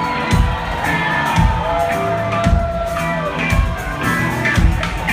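Rock band playing live, heard from the audience: a steady kick-drum beat about once a second under long held notes, one of them bending in pitch partway through.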